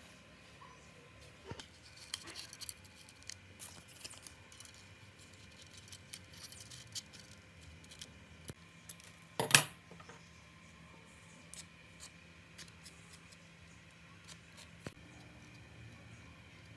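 Small scattered clicks and ticks of enamelled copper wire being handled and worked into the slots of an electric motor's stator during a rewind, with one much louder sharp knock about halfway through.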